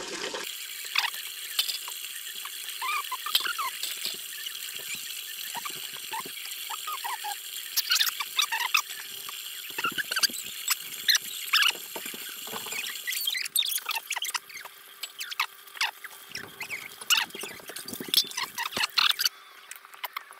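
Puppy whimpering and squealing in many short high-pitched cries while being soaped and rinsed, over scattered splashes and the rubbing of wet fur.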